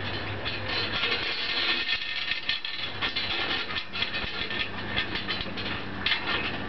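A boat lift's engine idling with a steady low hum, under a run of small metallic clinks and chain rattles as a steel boat stand is set against the hull.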